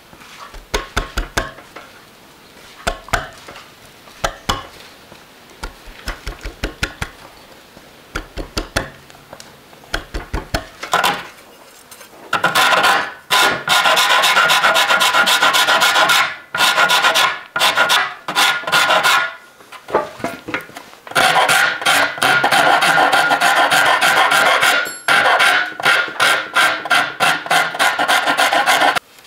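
A carving gouge cutting small chips from a hackberry bow stave in quick clusters of short strokes. About twelve seconds in, a round file starts rasping back and forth over the carved wood in long runs of strokes with brief pauses, and it stops abruptly at the end.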